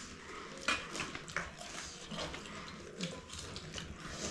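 Close-up eating sounds of people chewing and crunching crisp panipuri, with a few short sharp crunches and clicks scattered through.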